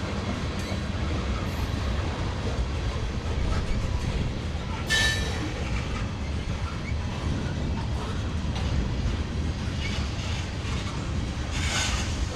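Freight train tank cars rolling past, a steady low rumble of wheels on rail, with a brief sharp noise about five seconds in and again near the end.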